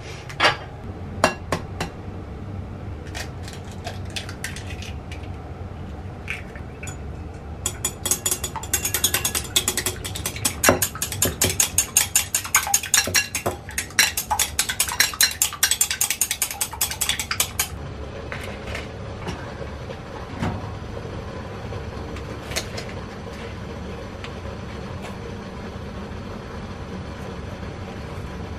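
Chopsticks beating eggs in a glass bowl: a fast, even run of clicks against the glass that lasts about ten seconds in the middle. Before it come a few separate knocks and clicks, and after it the sound drops to a quieter steady background with an odd click.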